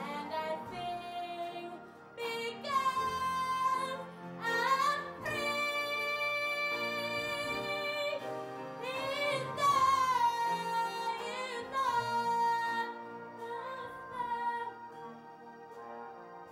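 A young girl singing a gospel hymn solo over piano accompaniment. She holds long, wavering notes with vibrato and grows loudest about ten seconds in, then eases off softly near the end.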